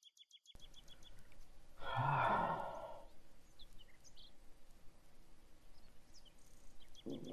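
A man lets out a loud, drawn-out sigh about two seconds in, lasting about a second, and another low vocal sound starts near the end. A bird chirps in quick, even repeats at the start and again near the end.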